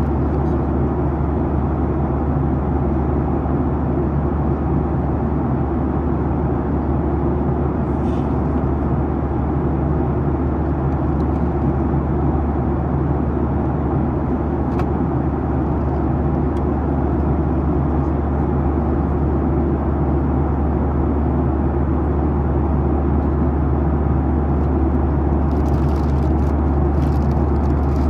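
Steady cabin noise of a Boeing 737-900ER in cruise: the drone of its CFM56-7B turbofan engines and the rush of air along the fuselage, dominated by a deep, even hum. A few faint clicks come near the end.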